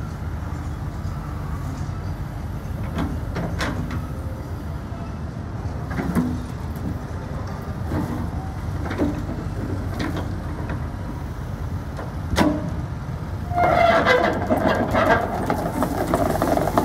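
Wacker Neuson EZ80 midi excavator's diesel engine running steadily while the hydraulics work the boom and bucket, with a handful of sharp metal clunks from the bucket and its attachment. About 13 s in, a loud shrill squeal with several pitches sets in and carries on to the end.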